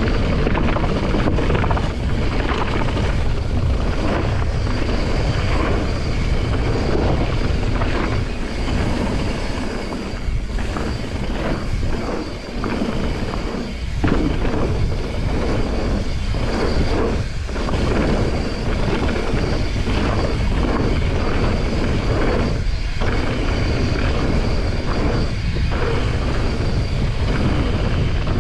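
Wind buffeting the microphone and mountain-bike tyres rumbling over a gravel and dirt trail at speed, with frequent knocks and rattles from the bike over bumps.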